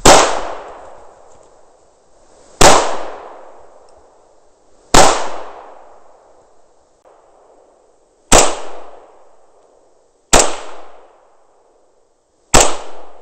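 Six rifle shots fired one at a time, roughly two to two and a half seconds apart. Each is a sharp crack followed by a long echo that dies away over a second or so.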